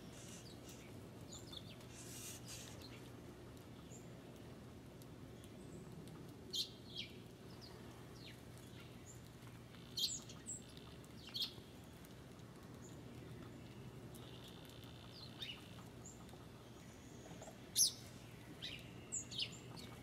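Small songbirds at a winter seed feeder giving short, scattered chirps and call notes, a few at a time, with gaps of several seconds between them.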